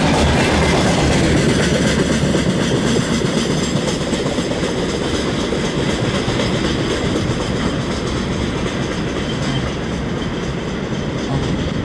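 Freight train rolling past: a steady rumble of wagon wheels on the rails, easing slightly toward the end.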